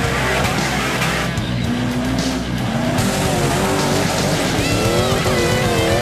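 Off-road rock-crawler buggy engine revving hard under load on a dirt climb. Music with bending guitar-like notes comes in over it about halfway through.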